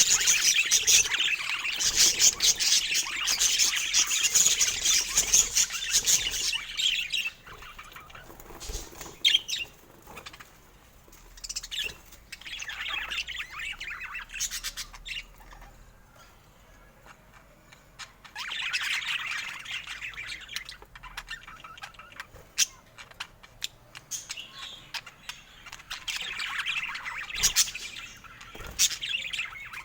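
Budgerigar chirping and chattering: a long stretch of dense chatter for about the first seven seconds, then shorter bursts with quieter gaps between.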